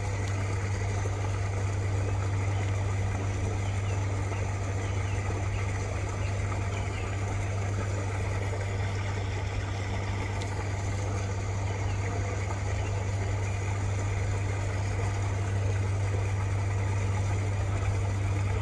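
A steady low mechanical hum, like an engine or motor running at a constant idle, holding unchanged throughout, with a few faint high chirps over it.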